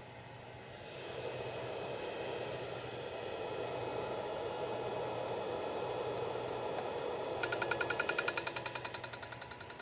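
Moving head stage light whirring steadily, growing louder about a second in. About seven seconds in, a rapid, regular ticking starts from the fixture, around six ticks a second.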